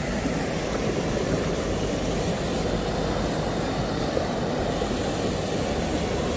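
Shallow seawater swishing and splashing around hands gathering in a cast net: a steady rushing noise.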